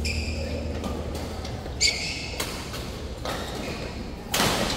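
Badminton rally in a large echoing hall: shoes squeak briefly on the court mat at the start and again about two seconds in, and near the end a racket strikes the shuttlecock with a loud, sharp crack.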